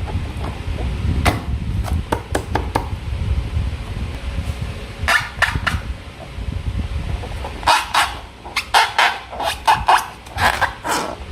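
Slime being squeezed and handled by hand: a run of short sharp clicks and squelches, bunched about halfway through and more densely in the second half, over low handling rumble.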